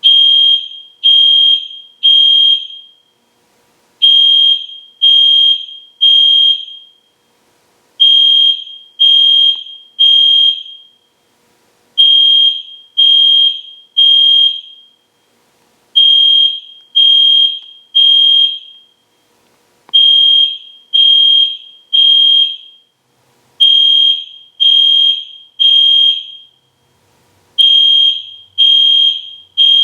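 EST Genesis fire alarm horn sounding a loud, high-pitched electronic tone in the temporal-three pattern: three short beeps about a second apart, then a pause, the cycle repeating every four seconds. This is the standard fire evacuation signal.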